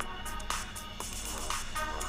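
Electronic background music with a steady beat, about two beats a second.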